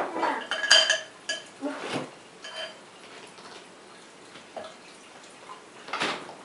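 A spoon knocking and scraping against a mixing bowl as peanut butter cookie dough, with its flour just added, is stirred. It makes a series of clinks that ring briefly, clustered in the first two seconds, with a few more later and one near the end.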